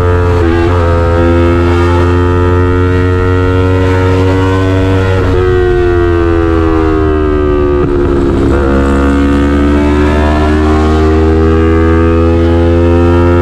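Yamaha MT-03 parallel-twin engine through an SC-Project aftermarket full exhaust, pulling steadily at highway speed. Its note sags slowly through the middle and climbs again near the end, with a few brief breaks in the note.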